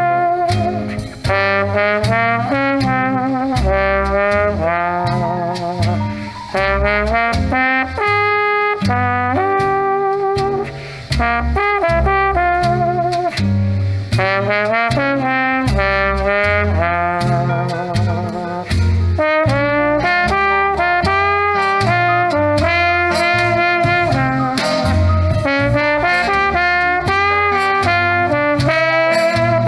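Instrumental break of a 1950s jazz song: brass instruments play the melody with vibrato over a rhythm section keeping a steady beat.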